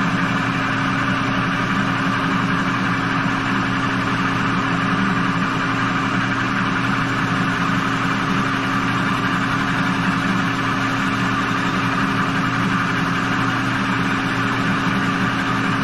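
Manual lathe running steadily at about 685 RPM while turning a 6L80-E transmission bell housing, a steady mechanical hum with an even hiss over it.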